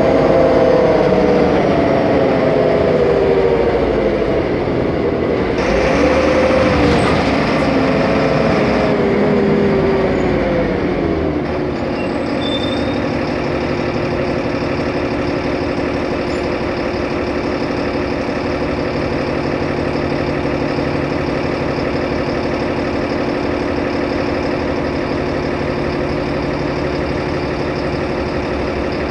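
Solaris Urbino 15 city bus heard from inside: its engine and drivetrain drop in pitch as the bus slows, pick up briefly about six seconds in, then wind down again. About twelve seconds in it settles into a steady idle.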